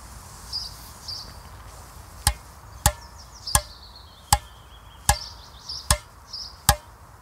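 Full bed of natural gut strings on a tennis racquet struck by hand seven times, one sharp tap about every three-quarters of a second starting about two seconds in, each with a short ringing tone.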